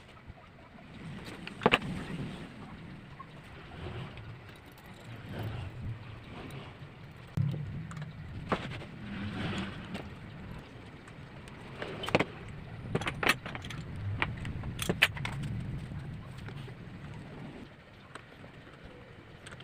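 Workshop handling noise: scattered sharp knocks and clicks of plywood and hand tools being moved and worked, over a low, uneven rumble, with no power tool running steadily.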